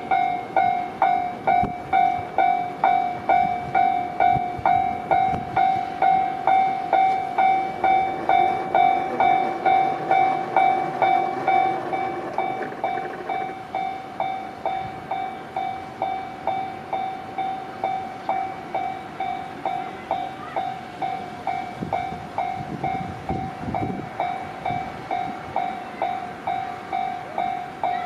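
Japanese railway level-crossing warning bell ringing in a steady, even rhythm of about two strikes a second. It turns quieter about twelve seconds in.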